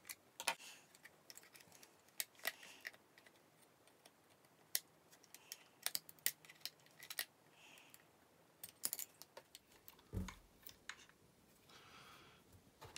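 Faint, irregular clicks and light scrapes of a small screwdriver working the chassis screws on an upside-down Hornby Class 56 model locomotive, with hands handling its plastic body. A duller knock comes about ten seconds in.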